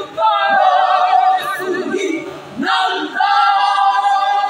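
Women's choir singing together, holding long notes, with a short break about halfway through before the voices come back in.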